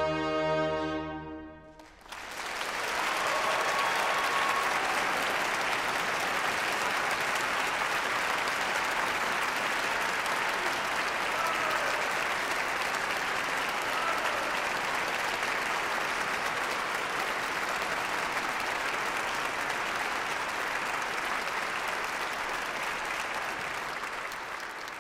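A full orchestra's final held chord, with brass, cuts off about two seconds in. Then a hall audience bursts into steady applause, beginning to fade near the end.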